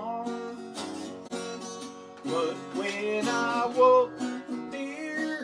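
Two acoustic guitars strummed together, playing a song live.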